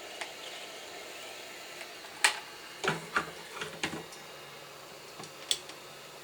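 Sharp mechanical clicks from desoldering tools, typical of a spring-loaded solder sucker being cocked and fired: one loud snap about two seconds in, a quick run of clicks over the next two seconds, and one more near the end. A faint low hum starts about three seconds in.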